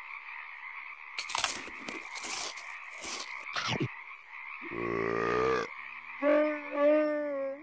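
A frog chorus calling steadily. About a second in comes a run of sharp clicks and crackles lasting a few seconds, then near the end two pitched, drawn-out calls: first a low one, then a higher, wavering one.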